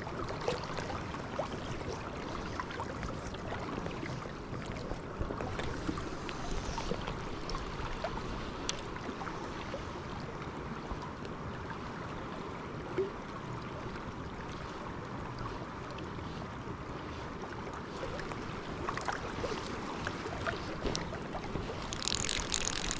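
Fast river current rushing steadily, with some wind on the microphone. Near the end a fly reel's click drag ratchets quickly as line is reeled in.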